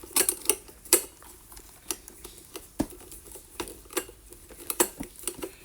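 Irregular sharp metallic clicks and clinks as a screwdriver works the screws on a ceiling fan's metal mounting bracket.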